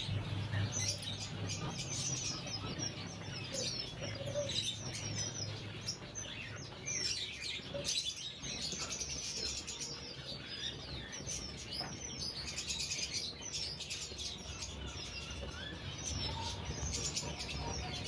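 A roomful of caged small birds (lovebirds, budgerigars and finches) chirping all at once: a dense, overlapping stream of short high chirps over a faint low hum.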